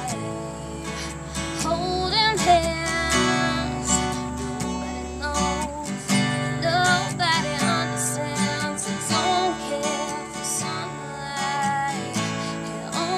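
A woman singing to her own acoustic guitar, strumming chords steadily under the sung melody.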